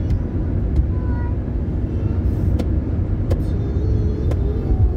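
Steady low rumble of road and engine noise inside a car's cabin at highway speed, with a few faint short clicks.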